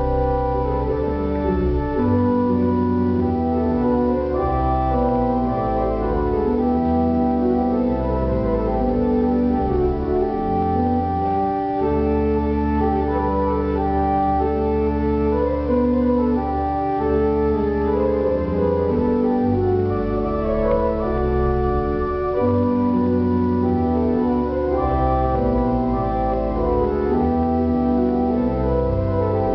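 Two-manual organ played in full chords over held bass notes, the chords changing every second or so at a steady, full volume.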